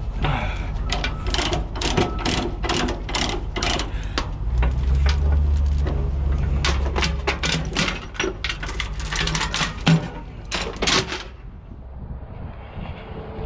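Rapid mechanical clicking, about two or three sharp clicks a second, with a low engine-like rumble swelling in the middle; the clicking stops near the end.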